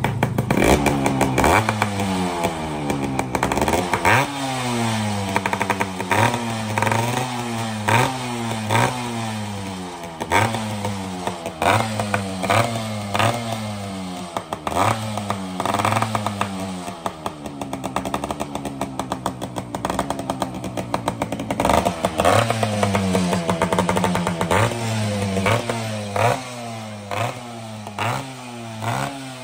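Two-stroke motorcycle with an expansion-chamber silencer, revved while standing: repeated throttle blips about once a second, each rising and falling, with crackling from the exhaust. For a few seconds past the middle the engine holds a steadier note, then the blipping resumes.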